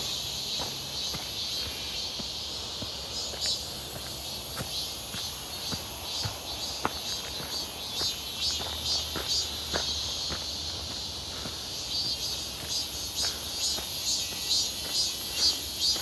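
Cicadas singing in chorus: a steady high buzz with a rapid pulsing call that swells in and out, strongest in the second half.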